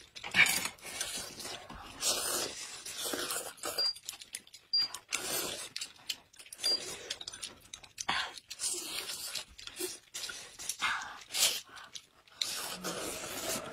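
Hot-pot eating: irregular slurps and chewing, with short clicks and taps.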